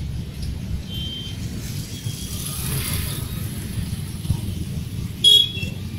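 Road traffic: a steady low rumble of vehicles, with one passing about halfway through, and a short, loud, high-pitched sound, like a horn, near the end.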